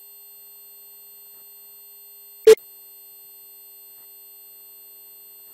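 Steady 16 kHz sine-wave test tone, with one short, loud click about two and a half seconds in.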